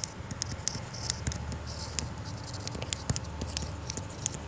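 Stylus tapping and scratching on a writing tablet as words are handwritten: a scatter of faint, irregular clicks and scrapes.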